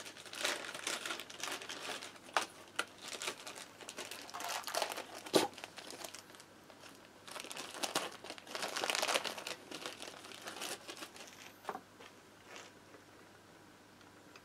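Plastic parts bag crinkling and rustling in irregular bursts as a new head gasket is unpacked by hand, with a few sharp clicks, dying away near the end.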